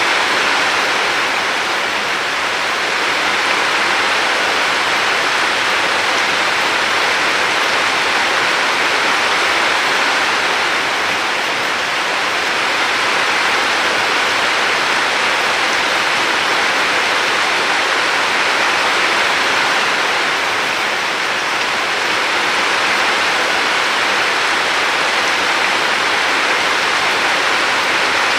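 River water flowing with a steady, even rush that swells and eases slightly every several seconds.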